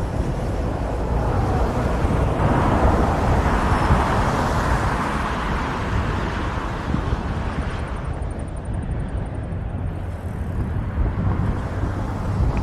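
Inline skates rolling along a paved path, with low wind rumble on the microphone and road traffic whose noise swells and fades between about two and seven seconds in.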